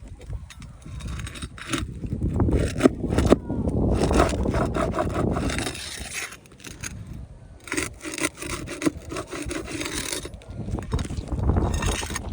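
Irregular scraping and rubbing with several sharp knocks, heaviest in two stretches, over a low wind rumble on the microphone.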